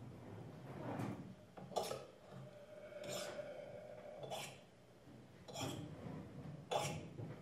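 Objects being scraped and rubbed in a free improvisation: about six rasping strokes, roughly one a second, with a held mid-pitched tone sounding for a couple of seconds around the middle.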